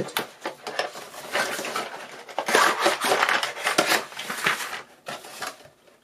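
Cardboard toy box being opened and its inner cardboard tray slid out, with loose plastic playset pieces rattling and clattering inside; the handling is busiest around the middle and dies down near the end.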